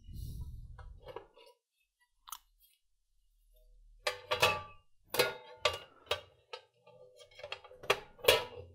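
Sheet-metal lid of a bench power supply case being handled and fitted onto the enclosure: a short rubbing noise at the start, then from about four seconds in a string of sharp metallic knocks and clanks with a brief ring.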